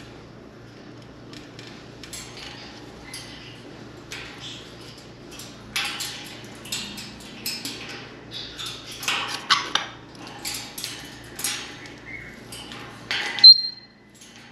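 Irregular clatter, taps and knocks of small hard objects being handled by an African grey parrot, busiest in the second half, with one loud knock about thirteen seconds in and a short high note straight after it.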